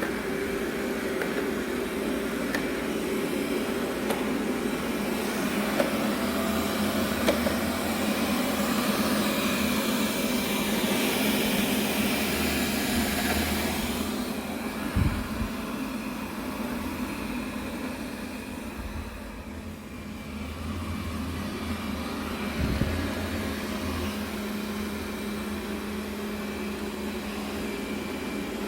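Robot vacuum cleaner running, a steady whir that grows louder and fades as it moves about. Two dull thumps come about halfway through and again some eight seconds later.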